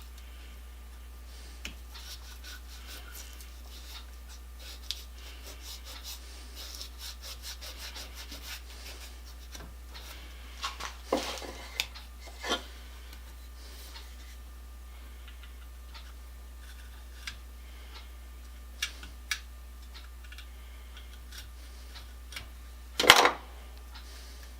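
Hand work on small metal parts: intermittent rubbing and scraping with light clicks and a few knocks, and one louder clatter near the end.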